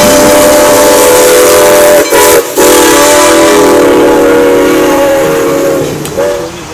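Steam whistle of Wilmington & Western locomotive No. 58 blowing at a grade crossing, several notes at once. It sounds a long blast, a brief one, another long blast, then a short toot near the end.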